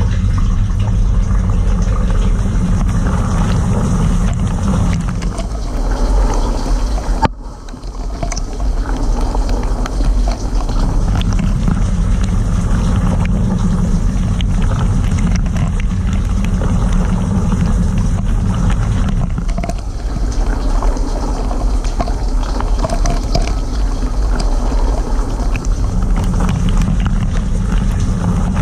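Cylinda dishwasher's rinse cycle heard from inside the wash chamber: water spraying and splashing against the walls over the steady hum of the circulation pump. The sound drops out for a split second about seven seconds in, then carries on.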